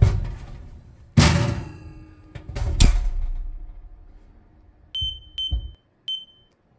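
Two loud metal clunks at an oven, the first ringing briefly, as a loaf of bread goes onto the wire oven rack and the oven is shut. They are followed by three short high beeps about half a second apart from the oven's touch control panel as its buttons are pressed.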